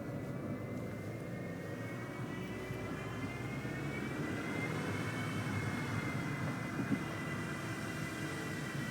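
Peugeot 206 on the move with a steady, high, dynamo-like whine over the road and engine noise, its pitch rising a little midway and easing back down. The cause has not been traced; a new V-belt has not cured it.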